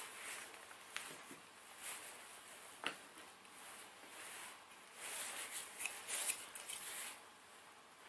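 Soft handling noises: light rubbing and scraping with a couple of sharp clicks, about one and three seconds in, and a longer stretch of scraping between about five and seven seconds.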